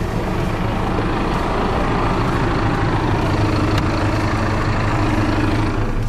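Heavy machine's diesel engine running steadily at an even speed.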